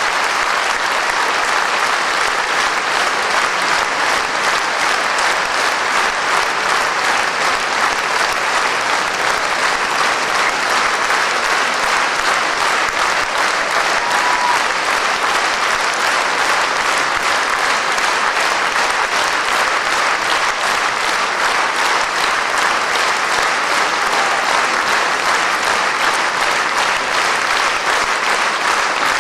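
Large concert audience applauding: dense, continuous clapping at a steady level.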